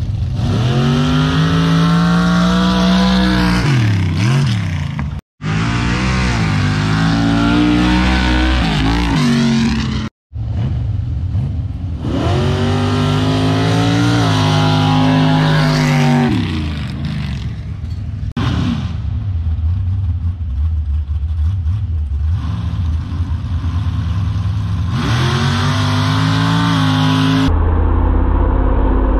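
Pickup truck engines at full throttle on mud drag runs, each rising in pitch as the truck accelerates and then falling away. The sound breaks off abruptly twice near the start as the runs are cut together.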